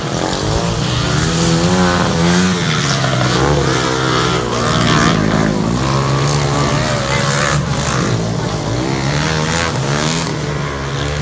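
Racing lawn mowers' engines running hard around the track, several at once, their pitch rising and falling over and over as they rev and ease off.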